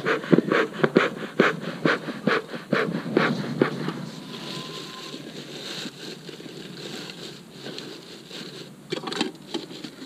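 Bee smoker's bellows being pumped to get the pine-straw fuel burning, short puffs of air at about two to three a second. The puffing stops about four seconds in, leaving a soft hiss, and a couple more puffs come near the end.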